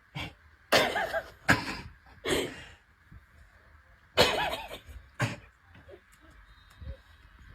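A person's voice in a string of short, sharp outbursts without words, the loudest about a second in and again about four seconds in.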